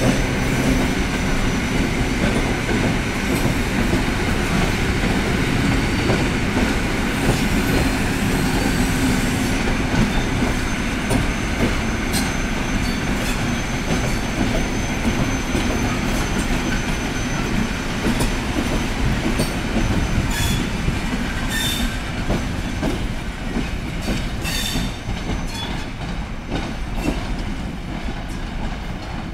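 EN57 electric multiple unit (coupled with an EN71) pulling out and rolling past with a steady rumble of wheels and running gear, and a thin high tone in the first several seconds. From about a third of the way in, its wheels clack irregularly over the points, and the sound fades slowly as the train moves away.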